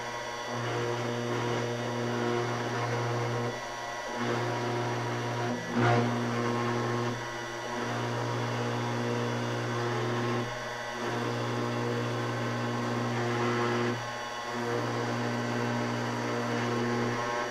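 CNC router cutting aluminium sheet with a 1/8-inch carbide bit, the router at a fixed 12,000 RPM: a steady running hum and whine with cutting noise. The low hum dips briefly about every three and a half seconds, and there is one sharp click about six seconds in.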